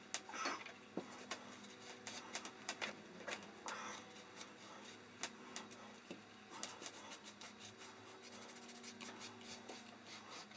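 Scattered light clicks, taps and brief rubbing from hands handling small objects, several a second, over a faint steady hum.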